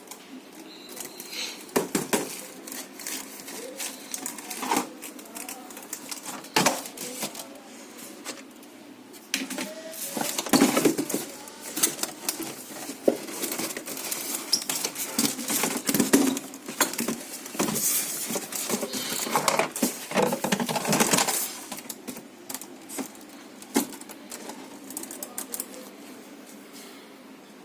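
Irregular clicks, knocks and rattles of hard plastic and metal parts being handled, busiest in the middle stretch and dying down near the end.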